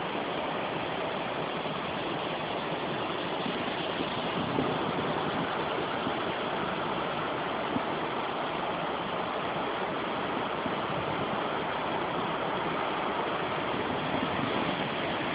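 Backyard stream rushing steadily, loud enough to sound like a river, as it runs high in the aftermath of a storm.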